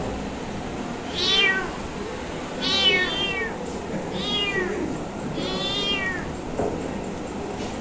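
A young kitten meowing four times, high thin calls that rise and fall, each well under a second long and spaced about a second and a half apart.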